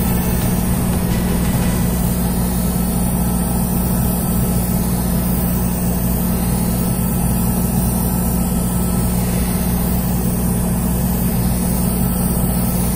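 Steady electric motor hum with a strong low drone and constant hiss from a hobby airbrush painting setup (spray booth extractor fan and air compressor) running while grey primer surfacer is airbrushed.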